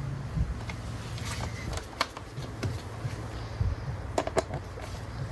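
Scattered light clicks and knocks of a bolt and tools being handled at a motorcycle's plastic lower fairing, with a sharp pair of clicks about four seconds in, over a low steady hum.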